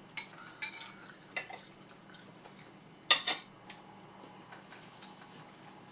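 Metal cutlery clinking against bowls and plates while eating: a spoon in a soup bowl and a fork on a plate. There are a few short, sharp clinks, with the loudest about three seconds in.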